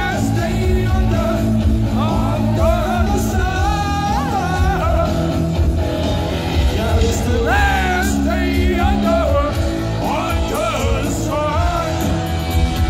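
Rock band playing live at full volume: electric guitars, bass and drums under a sung lead vocal, heard from within the concert crowd.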